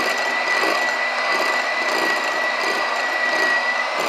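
Electric mixer running steadily with a constant high whine as its beaters whip egg whites to stiff peaks.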